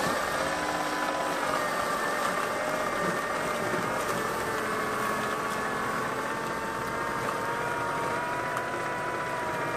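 Small 3D-printed RC snow blower running steadily while it throws snow from its chute: a steady motor and impeller whine with several high tones over a hiss, its pitch wavering slightly.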